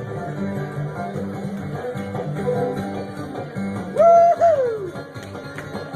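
Acoustic string band playing an instrumental break between sung verses: guitar picking over steady bass notes. About four seconds in, a loud held note slides down in pitch.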